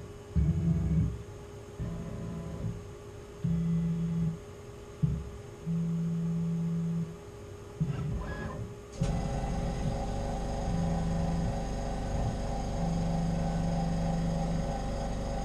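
Tormach PCNC440 mill's stepper-driven axes whining in a series of short moves of different lengths as the machine automatically probes a part with its touch probe. About nine seconds in, a louder, steadier mechanical running noise with several tones sets in and carries on.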